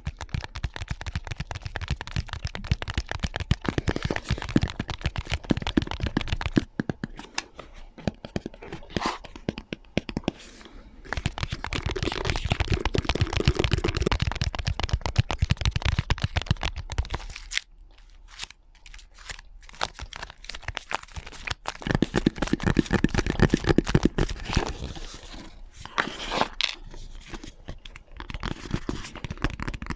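ASMR tapping triggers: rapid fingernail taps and crinkly, crunchy scratching on various objects, several layered at once. The mix changes character several times as one trigger fades into the next.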